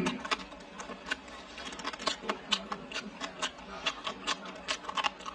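Close-up chewing of a mouthful of rice and meat: irregular wet clicks and smacks of the mouth, several a second.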